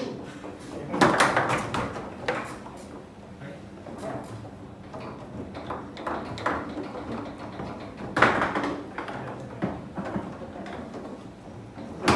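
Foosball table in play: irregular sharp knocks and clacks of the ball and rods, with a few louder, longer noises about a second in and about eight seconds in.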